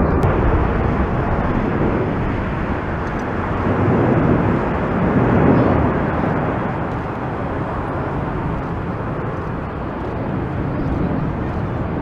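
Jet roar of an Airbus A380-841's four Rolls-Royce Trent 900 engines as the airliner climbs away overhead on a go-around: a deep, continuous rumble that swells about four to six seconds in and then eases a little.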